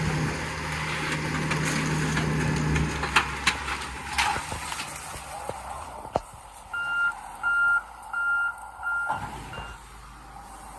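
Heavy equipment engine running with a few sharp knocks and clatter, then a reversing alarm beeping four times, evenly spaced, about two-thirds of the way in.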